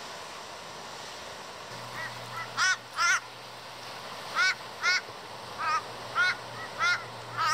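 A crow cawing: about ten short, arching caws, singly and in pairs, starting about two seconds in, over the steady wash of the sea.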